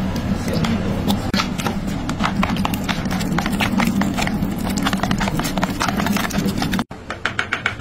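Metal fork clicking and scraping against a plastic bowl while stirring a thick mayonnaise-based sauce, with quick repeated clicks over a steady low hum. After a brief break near the end the clicks come faster and more evenly.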